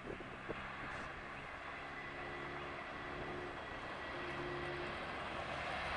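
Jet engines of a Boeing 737 MAX during the landing rollout: a steady rushing noise with a faint high whine, slowly growing louder.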